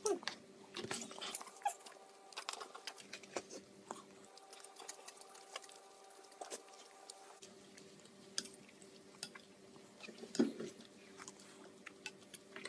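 Toddler chewing and smacking her lips while eating, a scatter of soft wet mouth clicks over a faint steady electrical hum, with a brief louder mouth or voice sound about ten seconds in.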